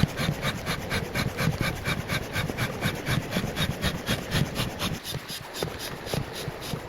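Rapid, even rasping strokes, about five a second, with dull low thuds underneath.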